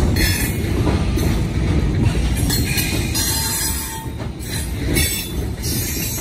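Freight train of hopper cars rolling past: a steady rumble of steel wheels on rail, with high-pitched wheel squeal flaring up about once a second.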